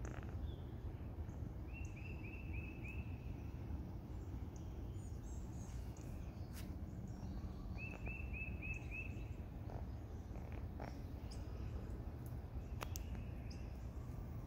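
Wild songbird calling in the background: a quick run of five or six short, identical high notes, about two seconds in and again about eight seconds in, with scattered fainter chirps, over a steady low outdoor rumble.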